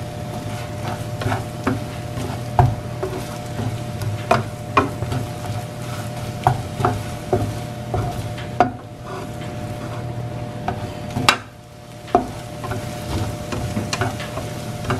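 Spatula stirring scrambled eggs in a nonstick frying pan: irregular knocks and scrapes against the pan over a light sizzle of butter and egg cooking on low heat. A steady hum runs underneath.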